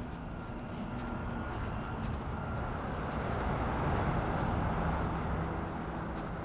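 Steady engine noise with a low hum, swelling slightly about four seconds in.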